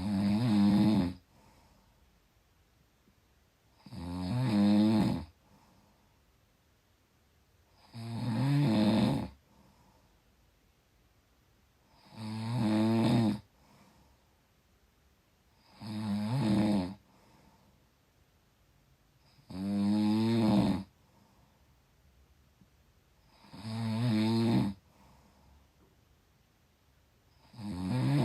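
Snoring in a steady rhythm: eight snores about four seconds apart, each lasting about a second and swelling in loudness before it cuts off, with quiet between them.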